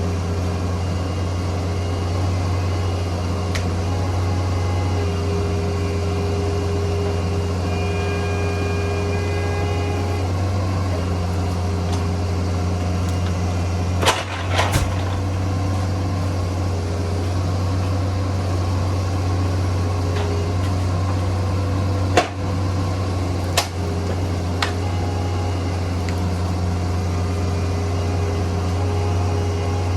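Bobcat 341D mini excavator's diesel engine running at a steady speed, with fainter tones starting and stopping over it and a few sharp knocks about halfway through and again some eight seconds later.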